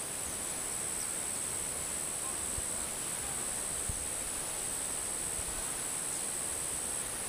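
Steady field ambience dominated by a continuous high-pitched insect chorus that never varies, over a soft outdoor hiss with a few faint low bumps.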